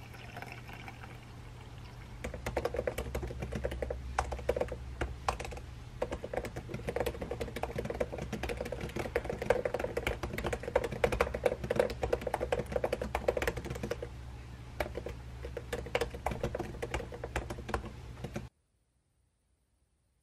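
Liquid poured into a ceramic mug for the first two seconds, then fast, continuous typing on a MacBook Pro's butterfly-switch laptop keyboard, a dense patter of key clicks that stops abruptly near the end.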